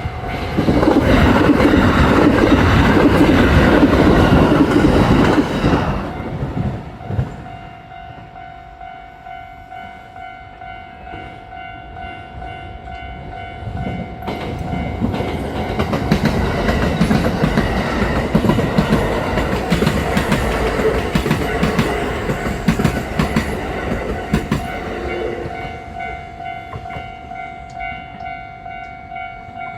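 Kintetsu electric trains passing at speed, wheels clattering over the rail joints. One loud pass fills the first six seconds and drops away. A second, longer pass builds from about fourteen seconds in and fades near the end, over a steady high tone.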